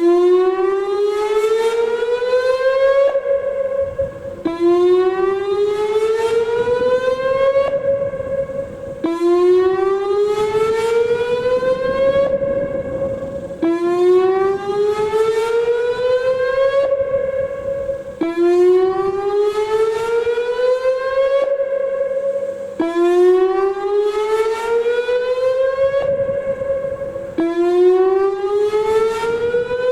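Whelen WPS-2809 outdoor warning siren sounding its whoop tone for a routine test: repeated rising whoops, each climbing in pitch for about three seconds, holding briefly, then dropping back, with a new whoop about every four and a half seconds.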